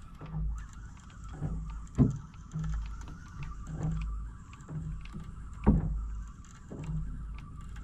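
Small wooden fishing boat at rest on the water: low slaps against the hull about once a second, with two sharp knocks on the woodwork about two seconds and nearly six seconds in, over a faint steady high tone.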